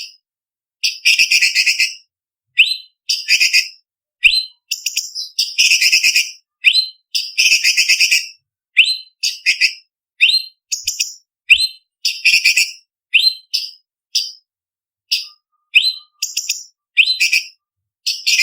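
Orange-bellied leafbird singing: a string of short, sharp, upward-sweeping whistled notes mixed with rapid chattering bursts, each burst lasting under a second and set apart by brief silent gaps.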